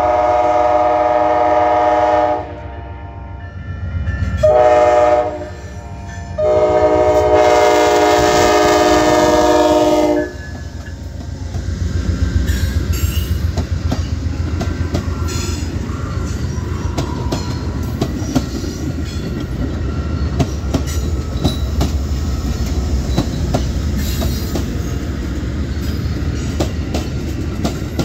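Amtrak passenger train's horn, a chord of several tones, sounding the end of one long blast, a short blast, then a long blast, the closing part of the long-long-short-long signal for a road crossing. The train then passes close by with a low rumble and rapid clicking of its wheels over the rail joints.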